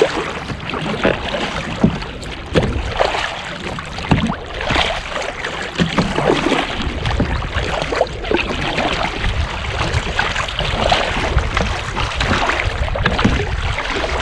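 Double-bladed kayak paddle dipping and pulling through choppy sea water in irregular strokes, with water splashing and slapping against the plastic hull of a sit-on-top kayak.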